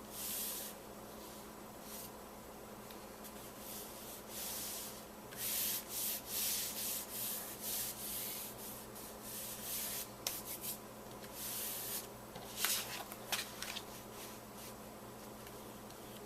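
Paper and cardstock rubbing and sliding under the hands as pieces are positioned and pressed flat, a series of short, irregular scraping strokes with a few light clicks about three quarters of the way through.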